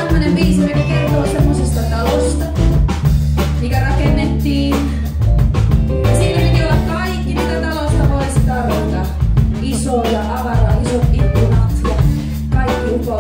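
Live band playing a song: a female lead voice sings over electric guitars, keyboard and drum kit, with a steady beat and a continuous low bass line.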